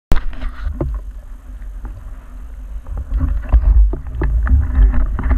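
Water sloshing and splashing around a camera held at the sea surface beside a wetsuited diver, with a heavy low rumble and scattered knocks and splashes throughout.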